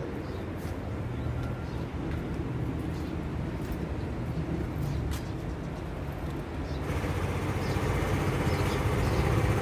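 Steady low rumble of a vehicle running, growing louder about seven seconds in.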